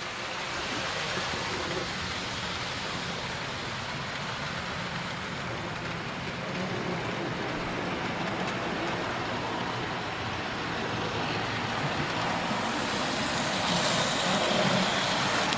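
Model trains running on a layout: a steady rumbling whirr of small electric motors and wheels on track, growing gradually louder in the last few seconds as a train comes nearer.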